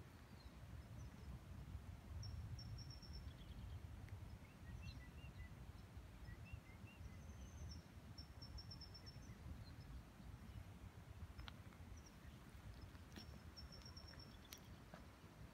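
Faint songbird calls: short high chirps and quick trills, repeated several times, over a low steady rumble, with a few soft clicks near the end.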